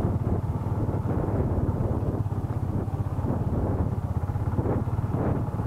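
Yamaha Exciter 150's single-cylinder four-stroke engine running steadily while the bike rides over a rough dirt track, with scattered knocks and rattles from the bumps.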